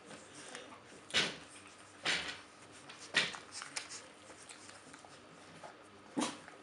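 Basenji puppies and an adult basenji scuffling on a wooden floor: three short, sharp knocking or scuffing noises about a second apart, then a fourth near the end, with fainter ticks and scrapes between.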